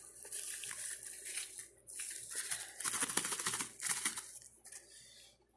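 A red dot sight's packaging being opened by hand: irregular crinkling and tearing of the wrapping, loudest about three seconds in.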